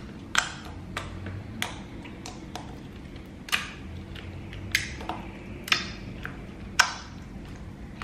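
Slime being kneaded and pressed by hand, making a dozen or so irregular sharp clicks and pops, some louder than others.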